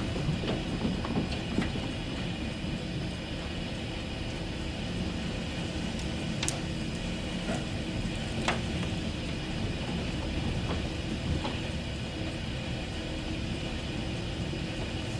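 Heavy rain falling steadily, a dense even hiss with a deep rumble underneath, with a few sharp ticks near the middle.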